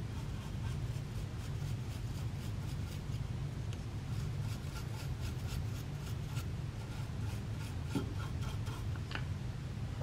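Small bristle paintbrush sweeping metal shavings off a key-cutting machine's clamp and freshly cut key blank: many quick, light brushing strokes over a steady low hum, with a couple of small knocks near the end.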